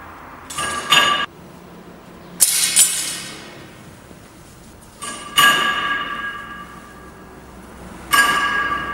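Sharp metal clanks from a hydraulic cocoa butter press being handled, each ringing with a clear tone that dies away over a second or so. Two come close together near the start, a noisier pair about two and a half seconds in, then single clanks about five and eight seconds in.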